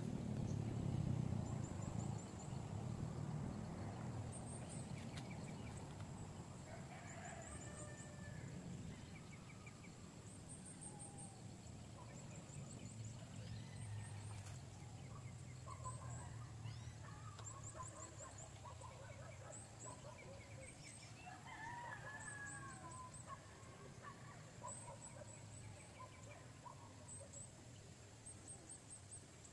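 Birds calling on and off, over short high chirps that recur every second or two. A low rumble at the start fades away over the first several seconds.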